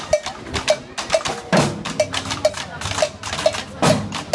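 Batucada samba percussion group playing: sharp clicking strokes keep an even pulse about twice a second, with a deep surdo-type drum hit twice.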